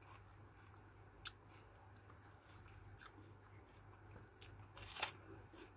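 A person chewing a crisp red-skinned, white-fleshed fruit close to the microphone: a handful of short, sharp crunching clicks, the loudest about five seconds in, over a low steady hum.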